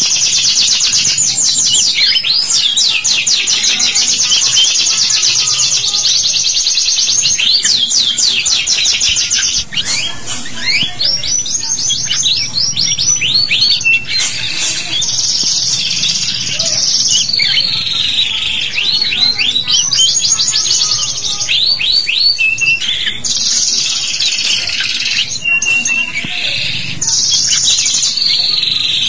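Domestic canary song: a long, fast run of rapid trills, rolls and chirps, broken only by a few short pauses.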